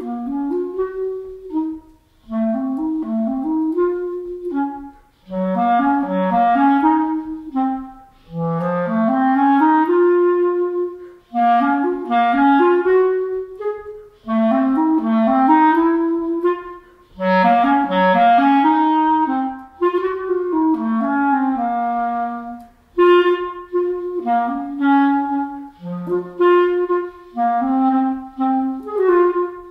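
Solo clarinet playing an unaccompanied melody in short phrases, with a brief break for breath about every two to three seconds.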